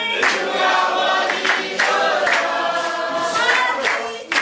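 Congregation singing a chorus together, many voices in unison.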